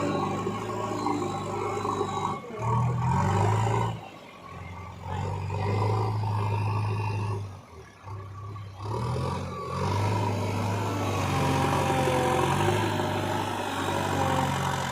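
JCB backhoe loader's diesel engine working while loading mud. The revs rise and fall as it takes load, dipping noticeably twice, about four and eight seconds in.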